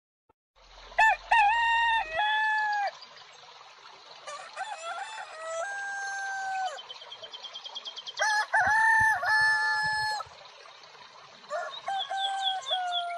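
Rooster crowing, about four long crows a few seconds apart, with small birds chirping faintly in the background.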